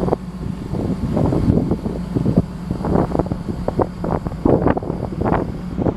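Massey Ferguson 9280AL combine harvester's engine running with a steady hum, under irregular gusts of wind buffeting the microphone.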